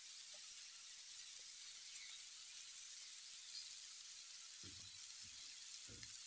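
Diced chicken breast, green onion and peppers sizzling in oil in a frying pan, a steady hiss. A few soft bumps from the silicone spatula stirring the food come near the end.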